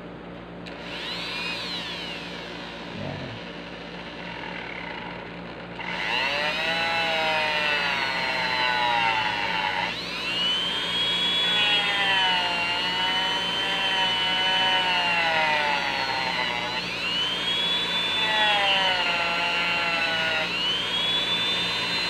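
Small handheld rotary tool with a cut-off disc cutting into a plastic action-figure neck connector: a high motor whine that sags in pitch as the disc bites and climbs back as it eases off, over and over. It gets louder about six seconds in.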